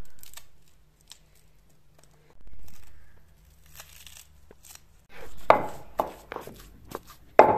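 Knife slicing green chillies and cutting coriander, then a wooden pestle pounding them in a clay mortar: a run of loud thuds, about two a second, over the last few seconds.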